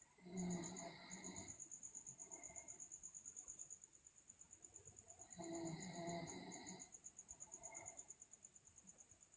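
A girl snoring in her sleep: two drawn-out snores, each a little over a second, the first near the start and the second about five seconds later. Under them a cricket chirps steadily in a fast, even train of high pulses.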